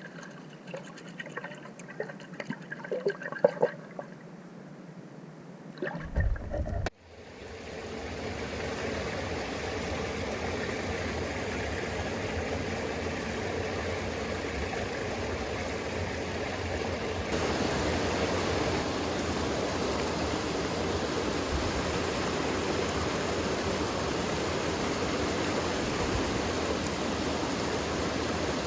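Scattered small clicks and knocks over a quiet background, then, about seven seconds in, an abrupt switch to the steady rush of a mountain stream's flowing water.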